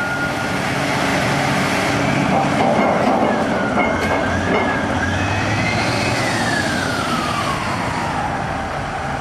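Electronic sound effects from a toy wheel loader: a steady noisy engine rumble with a siren-like tone that slowly rises and falls in the middle.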